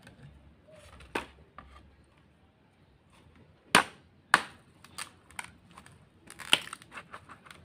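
Machete blows chopping into a bamboo tube: sharp knocks, the two loudest a little over half a second apart near the middle, then a quick run of lighter knocks near the end.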